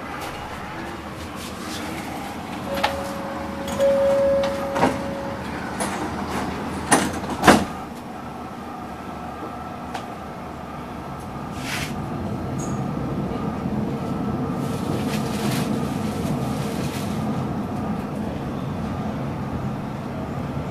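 Inside a Bombardier Variotram low-floor tram: a few sharp knocks and a short beep in the first eight seconds. Then the tram runs with a steady rumble that grows louder as it gathers speed.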